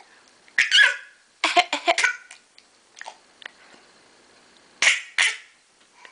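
A young child coughing: a single cough about half a second in, a quick run of three or four coughs around two seconds, and two more near the end.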